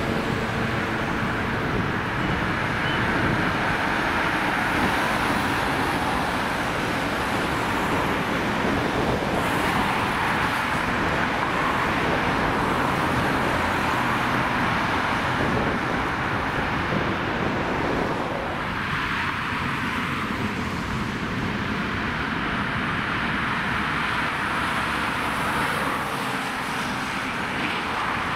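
Road traffic on a city street: cars and vans driving past, a steady rush of engine and tyre noise.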